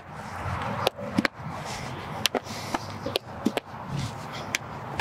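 Sharp knocks of a fungo bat hitting baseballs and of the balls popping into a leather glove in a rapid short-hop fielding drill, about two a second at an uneven pace, over a steady rushing background noise.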